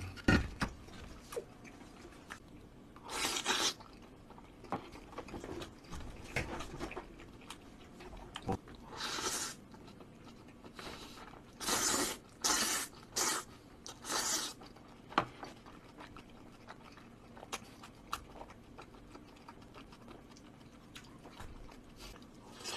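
Close-up eating sounds: a man slurping and chewing spicy mixed noodles with raw beef, with several short, hissy slurps through the middle and quieter chewing and smacking between them.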